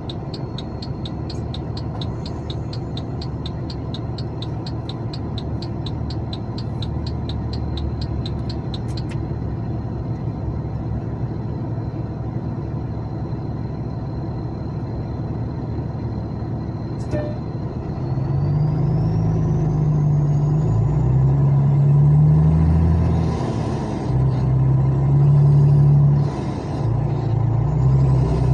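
Truck engine heard from inside the cab in slow traffic, running steadily, then from about two-thirds of the way in growing louder, its pitch rising and falling. A rapid ticking, about four a second, runs through the first third, and a high whistle climbs and wavers with the engine as it gets louder.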